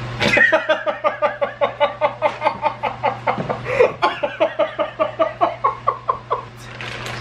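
A person laughing hard, an unbroken run of short 'ha' pulses at about four or five a second that lasts about six seconds and trails off near the end.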